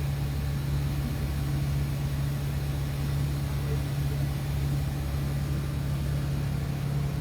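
Boat engine running at a steady speed, heard from on board as an even, unchanging low drone.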